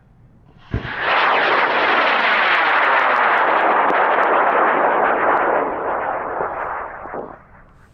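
High-power rocket motor lighting with a sudden thump less than a second in, then a loud steady roar that fades away over the last couple of seconds.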